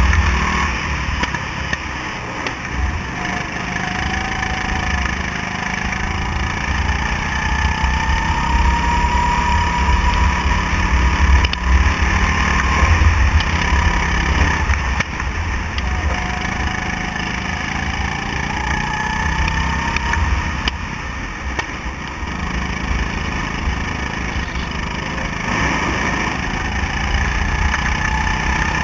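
Go-kart engine running under the driver, its revs climbing and dropping several times as the kart drives through the corners, over a heavy low rumble.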